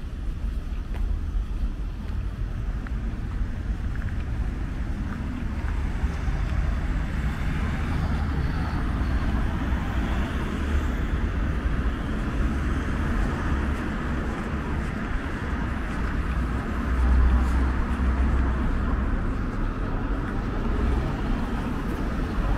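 Road traffic: cars and a van passing on the road with a steady tyre and engine rumble, one vehicle louder around seventeen seconds in, with wind buffeting the microphone.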